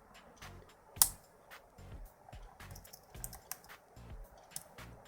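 A lock pick and tension tool clicking and scraping inside a euro cylinder lock during single-pin picking: a run of small, irregular metallic clicks, with one sharp, louder click about a second in.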